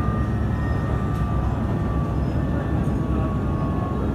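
Matsuura Railway MR-600 diesel railcar running along the line: a steady rumble of its engine and wheels on the rails, with a faint thin whine above it.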